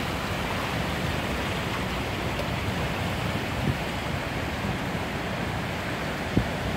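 Steady rushing wash of floodwater churned by a car driving slowly through a flooded street, heard from inside the car, with a couple of brief low thumps.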